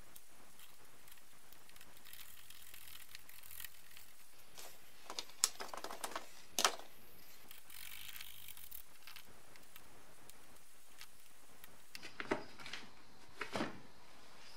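Black plastic heater-unit duct and flap parts from a BMW E30 being handled and picked apart by gloved hands: light plastic clicks and knocks with brief scraping, in two clusters, one about five to seven seconds in and one near the end.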